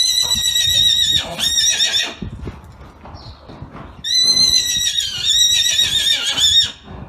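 A horse neighing: two long, high whinnies of about two and a half seconds each, the second starting about four seconds in, with low knocks between them.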